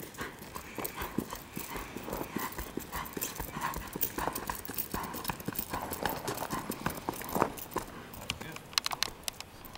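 Hoofbeats of a ridden Tennessee Walking Horse gelding on a gravel drive: a quick, steady run of clops.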